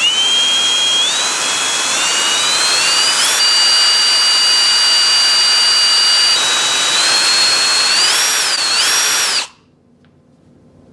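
Electric drill boring into an iPhone 7 to make a headphone-jack hole. Its high-pitched whine climbs in steps, holds steady, then wavers up and down before cutting off near the end.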